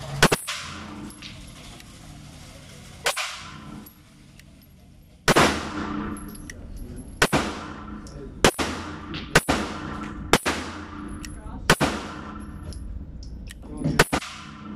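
A 9mm Smith & Wesson semi-automatic pistol fired nine times at an uneven pace, one to two seconds apart, each shot trailing off in the echo of an indoor range. The shots empty the magazine.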